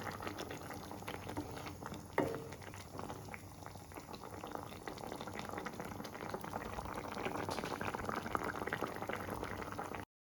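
Fish curry gravy boiling in a pan, a steady bubbling with many small pops, and a single knock about two seconds in. The sound cuts off suddenly near the end.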